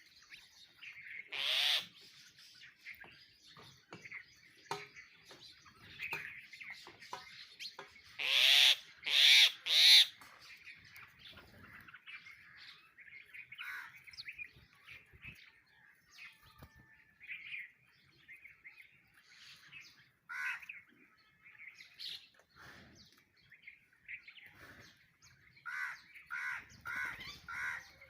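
A flock of sparrows and other small birds chirping continuously, with louder, harsher calls mixed in: one loud call early, three loud calls close together about a third of the way through, and a quick run of five chirps near the end.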